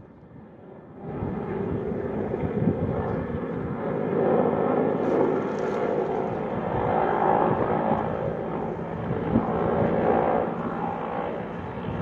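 Firefighting helicopter flying over a forest fire: steady engine and rotor noise that comes in about a second in and holds.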